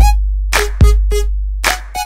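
Electronic, hip-hop style beat music: a heavy kick drum with a long deep bass boom after each hit, and short pitched synth stabs between the hits.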